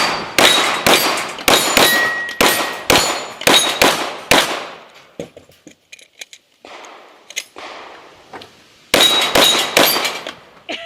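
Glock pistol firing fast strings of shots at steel targets, the plates ringing as they are hit: about eleven shots in the first four seconds, a pause of about four seconds, then about five more in quick succession near the end.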